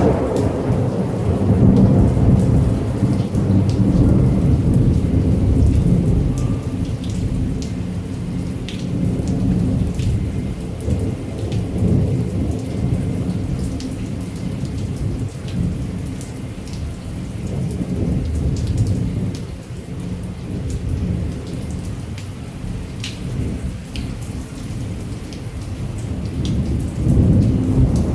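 Heavy rain falling with long rolling thunder. The low rumble is loudest at the start, dies down through the middle and swells again near the end, with scattered sharp raindrop ticks over the steady hiss of the rain.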